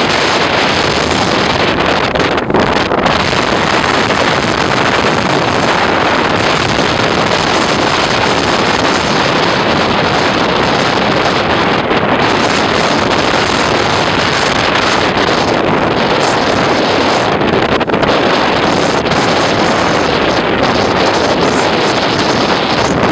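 Wind blowing hard across the microphone over building surf: a loud, steady rushing noise.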